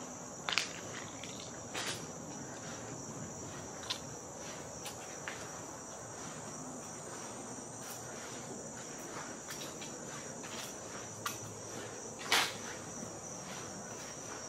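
Steady high-pitched chorus of insects, with a few short clicks and knocks scattered through it, the loudest a couple of seconds before the end.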